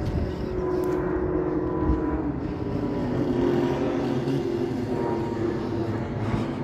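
An engine running at a steady speed.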